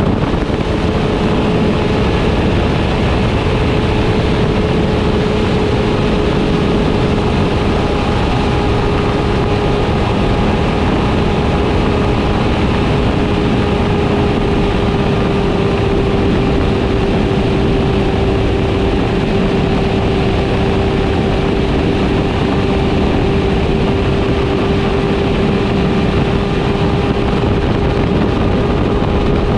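Motorcycle engine running at a steady high cruise, one unbroken engine note holding its pitch, under a constant rush of wind over the microphone.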